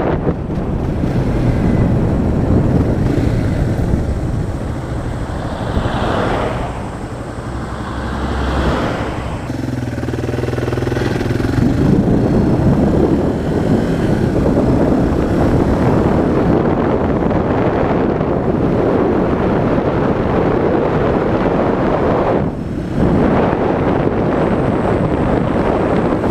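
Yamaha Serow 225's single-cylinder four-stroke engine running under way, heard through heavy wind rushing over the microphone. The wind and engine ease briefly about a quarter of the way in, then build back up.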